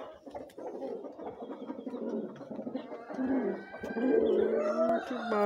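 A mother hen's low, murmuring clucks to her chicks, running on without a break and turning into longer drawn-out calls in the last couple of seconds.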